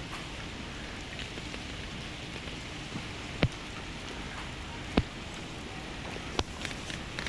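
Steady rain falling on pavement and wet road, an even hiss throughout, with two sharp ticks about a second and a half apart near the middle and a few fainter ticks near the end.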